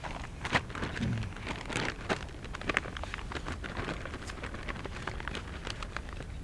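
Wood campfire crackling, with irregular sharp snaps and pops over a faint hiss of burning.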